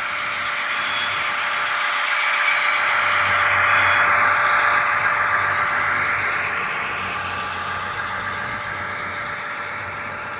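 Model diesel locomotive and its freight wagons running past on the layout's track: a steady mechanical running sound with a constant hum. It swells as the locomotive comes close, loudest about four seconds in, then eases off as the wagons roll by.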